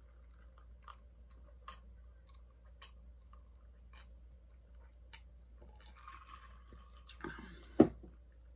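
Swallowing gulps while drinking from a glass, a soft click about once a second. Near the end comes a short rustle, then a sharp knock, the loudest sound here, as the glass is set down on the table.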